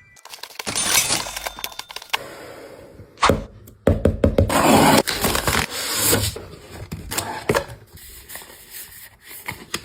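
Pokémon card product packaging being opened by hand: irregular crackling, tearing and scraping with sharp cracks, loudest around the middle.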